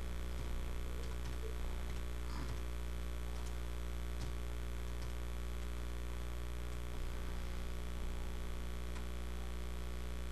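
Steady low electrical mains hum, with a few faint scattered clicks of laptop keys being typed.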